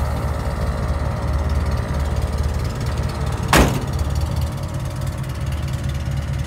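Toyota 22R four-cylinder engine idling steadily, with one sharp thunk about three and a half seconds in.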